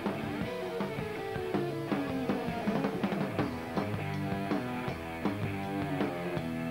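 A rock band playing live: electric guitars over a steady drum beat.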